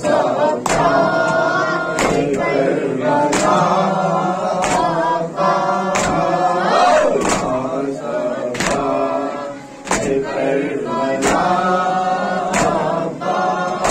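Men chanting a Muharram noha in chorus behind a lead reciter on a microphone. Chest-beating (matam) slaps keep a steady beat, about one every 1.3 seconds.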